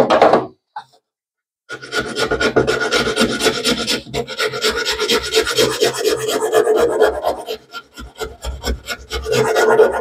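Round needle file rasping in quick, short back-and-forth strokes as it cuts a band groove into a wet G10 (fibreglass laminate) slingshot frame. The strokes stop for about a second near the start, then run on steadily, thin out briefly near the end and pick up again.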